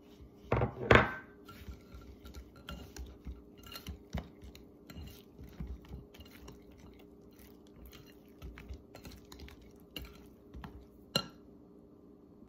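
Wire whisk beating thick banana bread batter in a glass bowl: wet stirring with irregular clicks of the wires against the glass. Two louder knocks about a second in and a sharp click near the end.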